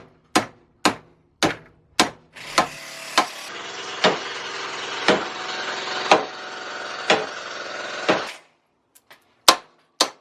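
Hammer blows on the steel sleeve of an old rubber bushing clamped in a vise, crumpling the sleeve inward to drive the bushing out: about a dozen sharp metallic strikes, close together at first and then about one a second. A steady mechanical whirring runs under the strikes through the middle and stops near the end.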